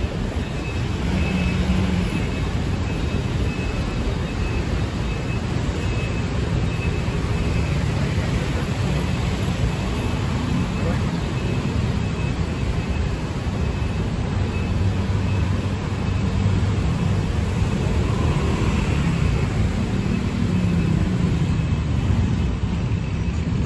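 Busy city road traffic: a steady mix of passing cars and engines, with indistinct voices of people nearby.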